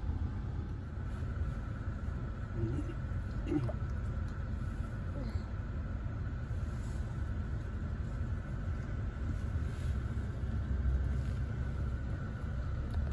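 Steady low rumble of a car heard from inside its cabin, with a faint steady high hum over it.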